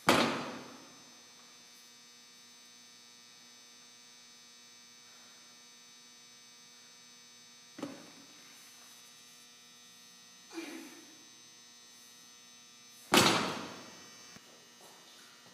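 Loaded barbell hitting the floor during deadlifts: a loud impact with a ringing decay at the start, two smaller knocks in the middle, and a second loud, longer-ringing impact near the end. A steady electrical hum runs underneath.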